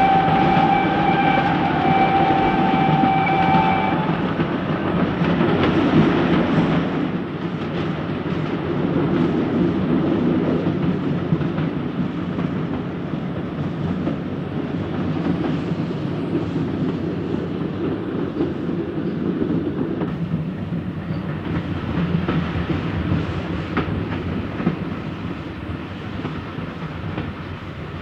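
Steam train running on the rails, its whistle sounding one steady note that stops about four seconds in. The running noise is loudest around six seconds and then slowly fades.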